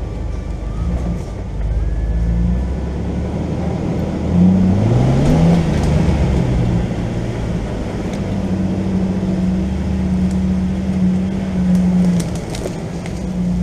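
Jeep Wrangler engine running while driving slowly off-road. It rises in pitch as it is revved about four to five seconds in, then holds steady. A few light knocks and rattles come near the end.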